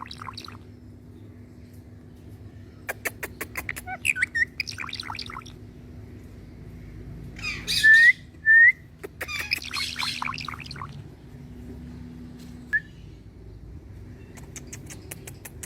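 Indian ringneck parrot squawking and chattering. Its loudest moments are two short upward-gliding calls about halfway through. Three runs of rapid clicks are spaced through the stretch.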